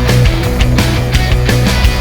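Background rock music with heavy drums and distorted guitar at a fast steady beat.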